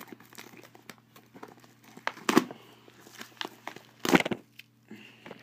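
Clear plastic shrink wrap on a cardboard box being picked at and peeled by fingers: scattered crinkling and crackling, with louder rustles about two seconds in and again about four seconds in.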